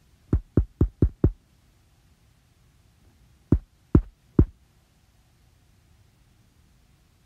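Heavy thuds of a shoe sole stomping down onto and around the camera on the floor: five quick stomps, about four a second, then a pause and three slower ones half a second apart.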